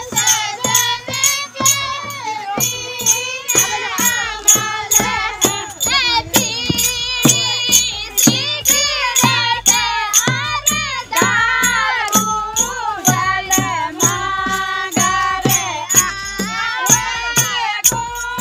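Holi folk song: singing with a wavering, held melody over a steady beat of percussion with a jingling rattle.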